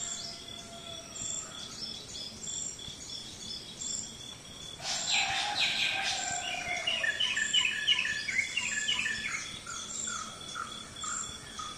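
Birds chirping over a steady trill of insects, with a burst of louder, rapid bird chirps about five seconds in that lasts several seconds.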